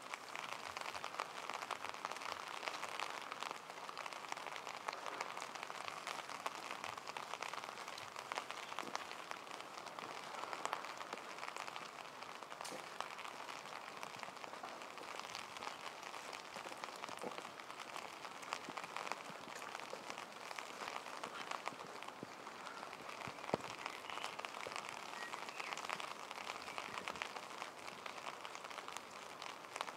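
Steady rain falling on wet pavement: an even hiss with many small drop taps, and one sharper tick a little past two-thirds of the way through.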